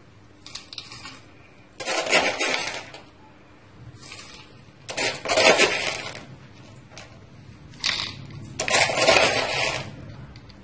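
Coarse salt crystals poured into plastic jars of chopped winged beans in water, a gritty rattling pour heard several times, a second or two apart.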